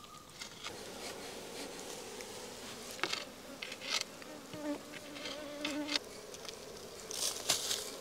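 Honeybees buzzing steadily around their exposed nest, with one bee's buzz passing close about halfway through. A few light taps and scrapes of a wooden stick digging into soil among stones.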